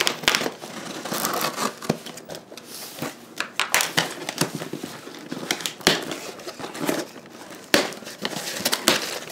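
Clear plastic packing tape on a cardboard box being slit with a blade and peeled back, crackling and tearing in sharp, irregular bursts, then cardboard flaps being pulled open near the end.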